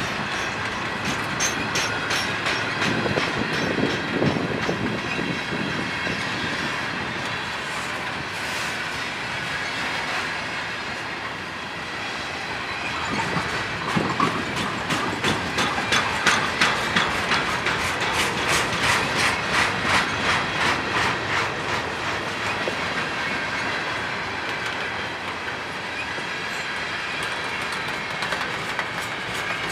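Freight train boxcars rolling past at trackside, their steel wheels clicking fast and evenly over the rail joints over a steady rumble. The clicking is loudest around the middle.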